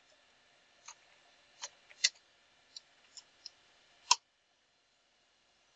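Computer keyboard keystrokes as a command is typed: a sparse run of single sharp key clicks, the last and loudest about four seconds in, then only faint hiss.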